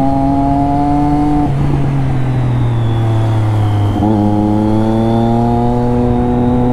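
Triumph Daytona 675 motorcycle's inline-triple engine and exhaust pulling under steady throttle, its pitch climbing slowly. It eases off about one and a half seconds in, then the throttle opens again about four seconds in and the pitch jumps up and climbs once more.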